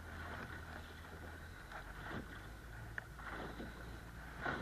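Faint handling sounds of fishing tackle on a small boat: light rustling and a couple of small clicks as hooks and lures are worked off a caught cod, over a low steady hum.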